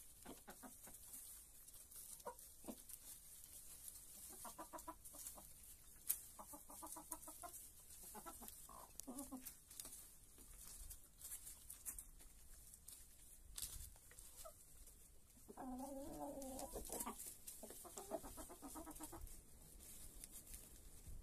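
Chickens clucking softly in short calls every few seconds, with a longer wavering call a little past the middle. A few sharp clicks are scattered through, the loudest about six seconds in.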